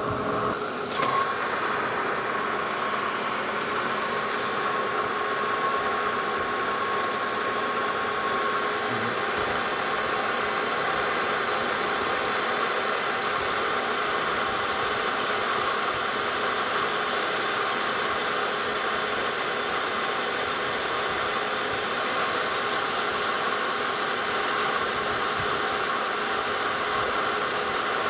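Metal lathe running while turning a metal disc, with the steady hiss of a mist coolant sprayer over the machine noise. A faint steady tone sounds for the first several seconds.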